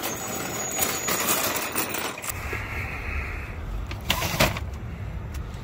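Shopping cart rattling as it is pushed across pavement. After a low rumble sets in, there are two sharp knocks of groceries being set down on a wooden cabinet floor.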